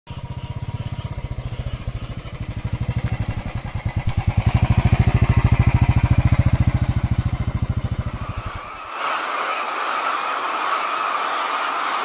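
Single-cylinder motorcycle running at low revs with an even, slow thumping beat, growing louder as it comes close and then fading. About nine seconds in it gives way abruptly to the steady clamour of many caged laying hens in a poultry shed.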